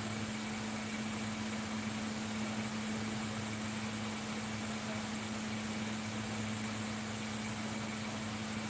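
Steady machine hum with a hiss over it, unchanging throughout.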